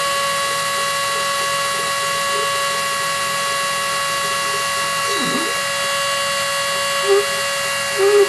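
CNC machine running with a steady whine over a hiss. Briefly dips in pitch and comes back about five seconds in, with a couple of short tones near the end.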